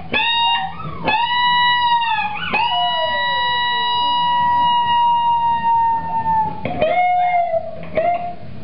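A dog howling along to guitar playing. Several howls rise and fall in pitch, with one long howl held steady for about four seconds in the middle.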